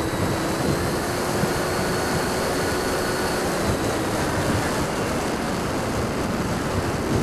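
Steady rush of airflow and wind on the model's onboard microphone, with the faint steady whine of a Freewing Hawk's 70 mm electric ducted fan underneath, as the model jet flies a low landing approach.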